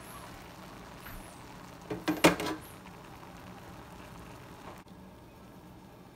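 A brief clatter of metal cookware about two seconds in, a few quick knocks of the pot or its stainless steel steamer basket, over a faint steady hiss from the open steaming pot.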